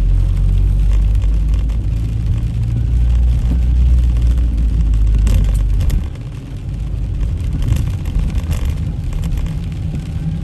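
Steady low rumble of a moving vehicle that drops suddenly about six seconds in and then carries on more quietly, with a few faint knocks.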